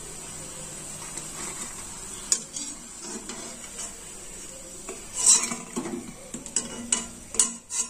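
Pakoras sizzling in hot oil in an aluminium kadhai, with a steady high hiss. A metal slotted spoon knocks and clinks against the pan as the fried pakoras are lifted out: once about two seconds in, then several times in the second half.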